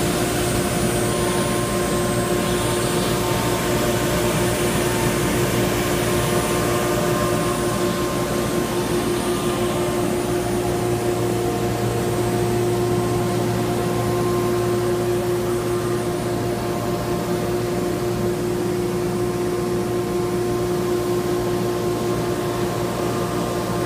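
CNC router running steadily: a constant machine hum with one strong held tone over an even rushing noise.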